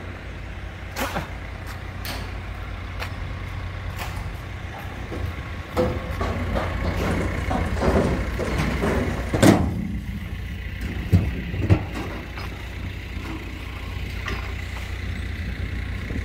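A heavy vehicle engine running steadily with a low rumble, with scattered metal clanks and knocks; the loudest knock comes about halfway through.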